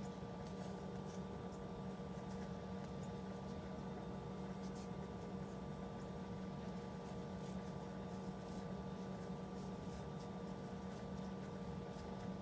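Soft, irregular scratching and rustling of yarn drawn through and over a metal crochet hook as stitches are worked, over a steady low hum.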